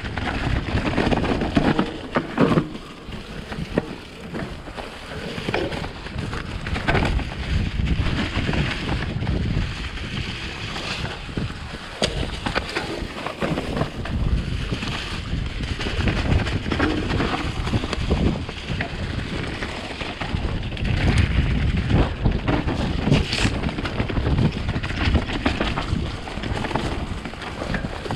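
Specialized Enduro full-suspension mountain bike descending a wet, muddy trail: tyres rolling through mud, with frequent rattles and knocks from the bike, and wind rushing on the microphone.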